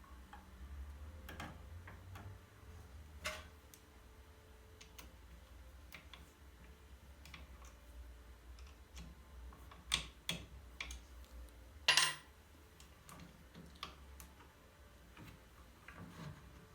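Scattered light clicks and taps at irregular intervals, the two loudest about ten and twelve seconds in, over a steady low hum.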